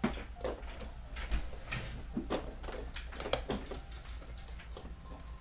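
Irregular small clicks and knocks of hand tools and metal parts being handled while an Xbox 360 is taken apart.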